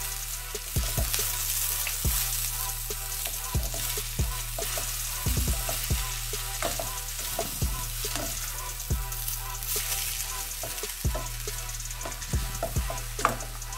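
Rice noodles sizzling in a stainless steel pot as they are tossed and stirred with a spatula, with irregular knocks and scrapes of the spatula against the pot.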